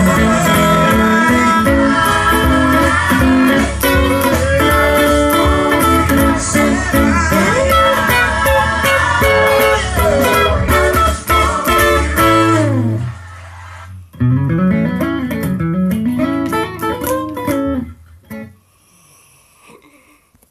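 Electric guitar playing gospel quartet-style lines over a full band with drums and bass. The band stops about twelve seconds in, and the guitar plays a few sliding notes alone before dying away near the end.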